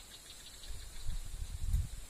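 Wind buffeting the microphone in uneven low rumbling gusts, strongest about a second and a half in, over a faint steady high-pitched whine.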